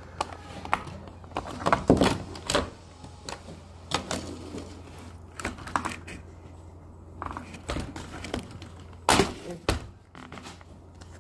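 Plastic playset pieces handled and snapped together: irregular clicks and knocks of hard plastic, the loudest about two seconds in and again about nine seconds in, over a steady low hum.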